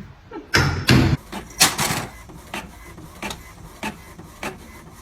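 Two heavy thuds close together in the first second or so, then a string of sharp, irregular knocks and taps.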